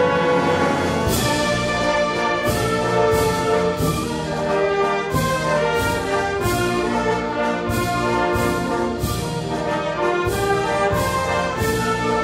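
Wind band playing a concert pasodoble: full brass-led chords over a steady percussion beat of about two strokes a second, which comes in about a second in.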